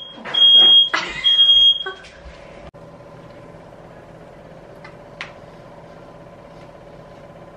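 An electronic beeper sounds three high, steady beeps, each about half a second long with short gaps between them, and voices talk over them. After that comes a steady low hum.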